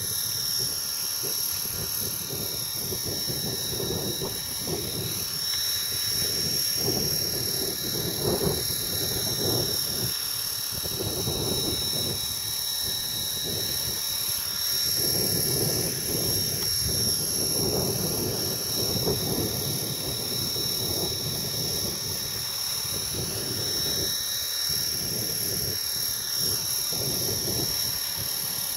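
Align T-Rex 450 electric RC helicopter in flight, its motor and rotor giving a steady high-pitched whine. Strong gusty wind rumbles on the microphone underneath.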